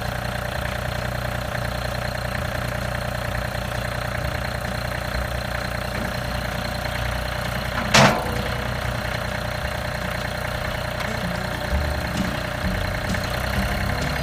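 John Deere 3025E compact tractor's three-cylinder diesel engine running steadily as the tractor is test-driven after a repair to its drive. A single loud, sharp knock about eight seconds in, with a few lighter thumps near the end.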